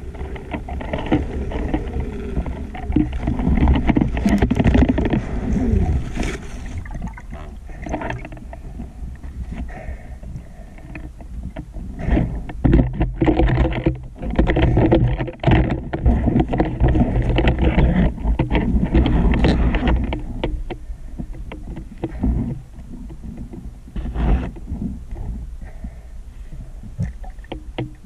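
Muffled underwater noise picked up by a camera in a waterproof housing as a diver swims: low rushing water with irregular knocks and crackles, busiest in the middle.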